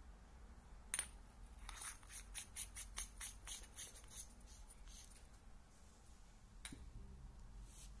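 Aluminium flashlight head being screwed onto its body tube. A sharp metallic click comes about a second in, then a quick run of light ticks from the threads, about five a second, for a couple of seconds. A few single clicks follow near the end.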